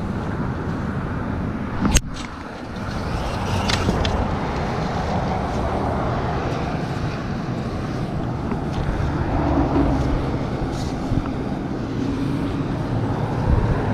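Steady road traffic noise from cars passing on the highway, with one sharp click about two seconds in.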